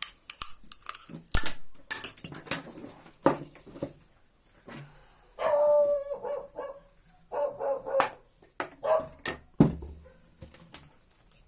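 A dog barking and whining several times in short pitched calls, the longest about five and a half seconds in, among sharp clicks and knocks.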